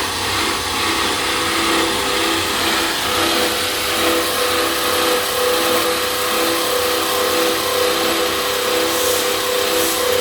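Metal fabrication machinery running steadily: a motor hum with a tone that pulses about twice a second, over a broad hiss.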